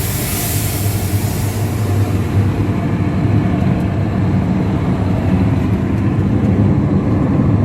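Dump truck's diesel engine running steadily with a low drone, plus a hiss that fades out over the first two seconds or so.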